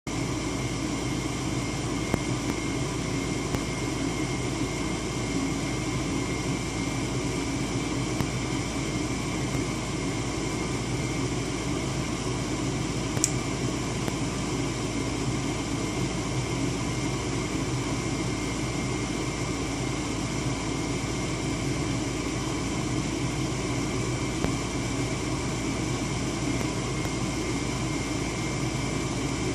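Goodman furnace running with a steady blower hum and air rush, carrying a few steady whining tones and a few faint ticks.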